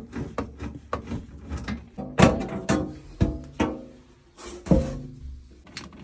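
Background music made of plucked, bass-like notes that die away after each stroke; the strongest notes come a little past two seconds in and near five seconds.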